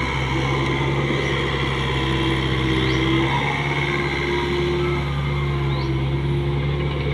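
Komatsu PC45MR mini excavator's diesel engine running steadily under working load as the hydraulics swing the arm, dump a bucket of soil and lower the bucket back into the trench.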